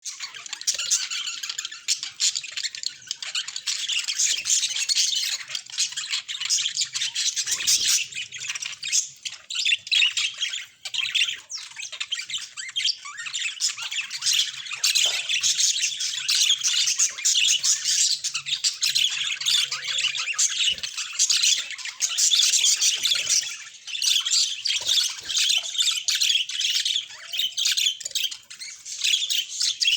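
Budgerigars chattering: a steady stream of high, fast chirps and warbles with hardly a pause.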